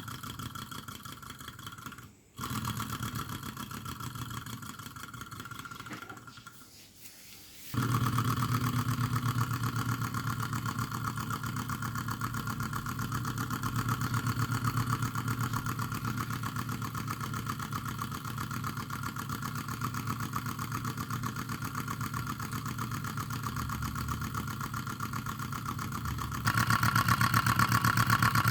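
Small model Rider-Ericsson hot-air engine running steadily, with a fast, even mechanical rhythm, its water pump working. It gets louder about eight seconds in and again near the end.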